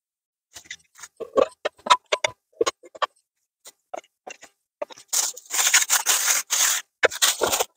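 Light clicks and knocks of hard plastic kit being handled, then a clear plastic bag crinkling and rustling as it is handled, starting about five seconds in.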